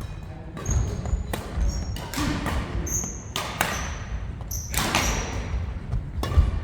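Badminton rally on an indoor court: sharp racket-on-shuttlecock hits and footfalls on the wooden floor, about nine knocks in all, with short high squeaks from court shoes between them, echoing in the hall.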